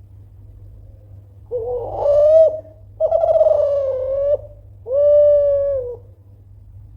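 Kelantan-strain spotted dove cooing loudly in three phrases of about a second each, the last a steady note that drops at its end.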